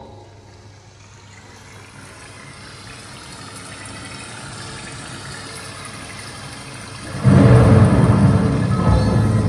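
Pioneer CS-88A speakers playing back a recording. A wash of sound swells slowly for about seven seconds, then the full instrumental intro comes in loudly and carries on.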